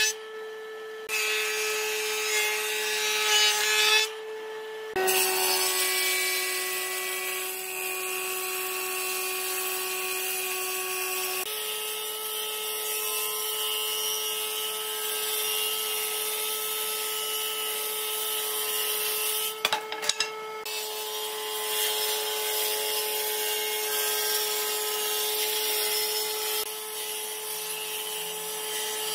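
Electric power tool with a steady motor whine, working wood with a rasping, sawing noise. The whine shifts pitch abruptly a few times and drops out briefly twice.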